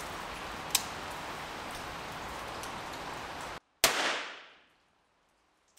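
A single shot from a Webley & Scott Mk IV pocket revolver firing low-powered .38 Smith & Wesson, about four seconds in: a sharp crack with a short echo dying away. Before it there is a steady hiss, with a faint sharp click about a second in.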